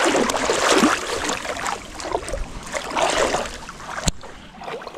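Shallow river water splashing and sloshing around someone wading, loudest at the start and fading, with one sharp click about four seconds in.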